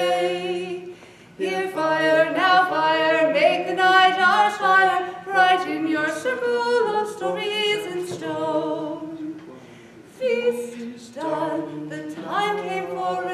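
A woman and a man singing a song without accompaniment, her voice leading above a lower sustained voice, in long phrases with brief breaths about a second in and near ten seconds in.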